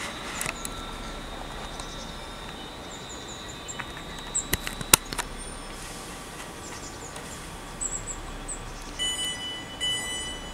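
A standing electric multiple unit at a station platform, giving a faint steady high whine, with small bird chirps and two sharp clicks about five seconds in. About nine seconds in, the train's door-release alert starts beeping repeatedly as the doors are unlocked for boarding.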